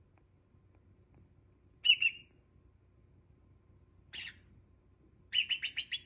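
Cockatiel chirping. A loud chirp about two seconds in, a softer, harsher call about four seconds in, then a quick run of about six chirps near the end.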